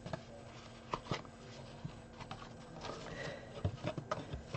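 Handling sounds of cardstock and a fabric soft toy: faint rustling with a few light clicks and taps scattered through.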